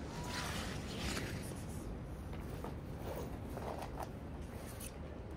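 A series of short rustling, scraping swishes, the strongest two in the first second, then several shorter ones: handling noise while cat food is got out.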